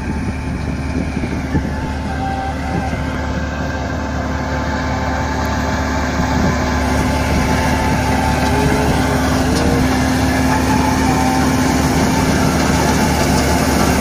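Combine harvester running steadily as it cuts ripe wheat, its engine and threshing machinery giving an even drone with a constant hum that grows gradually louder.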